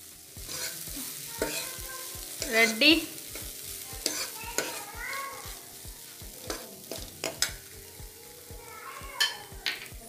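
Steel ladle stirring corn kernels in a frying pan, with repeated irregular scrapes and knocks of the ladle against the pan over the light sizzle of frying.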